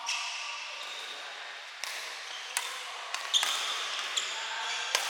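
Badminton rally: rackets striking the shuttlecock about six times, mostly less than a second apart, over a steady hiss of rain.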